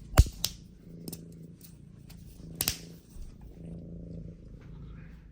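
Domestic cat purring close by, a low steady rumble that swells and fades in stretches. A few sharp clicks cut through it, the loudest near the start and again about halfway.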